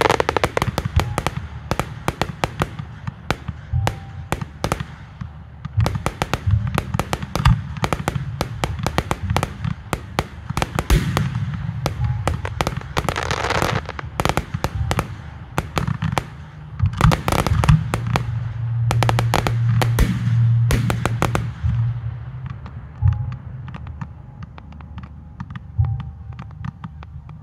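Fireworks display: rapid bangs and crackles of firework shells bursting, many per second, thinning out over the last few seconds.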